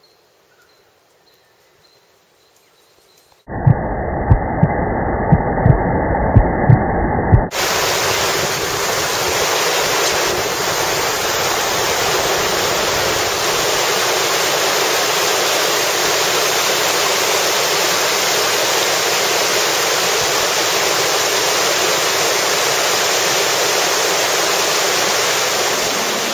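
Rushing whitewater of a river rapid: a loud, steady rush of water. Before it, after a few seconds of near silence, comes a muffled rumble with several sharp knocks that cuts off suddenly.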